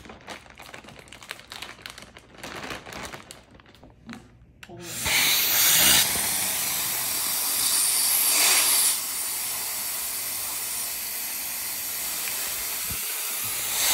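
Plastic vacuum storage bag crinkling as it is handled, then about five seconds in a vacuum cleaner starts with its nozzle on the bag's valve. It makes a steady loud hiss of air being drawn out as the bag is sucked flat.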